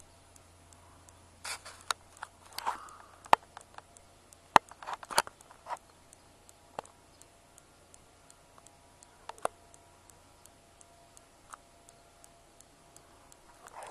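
Handling noise on a camcorder's built-in microphone: scattered sharp clicks and scrapes, most of them in the first six seconds, over a faint low hum.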